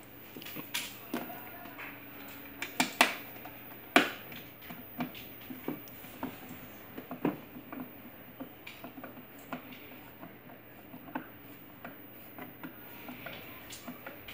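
Irregular clicks, taps and knocks of hard plastic parts being handled while a battery-powered ride-on toy car is assembled. The loudest knocks come about three and four seconds in.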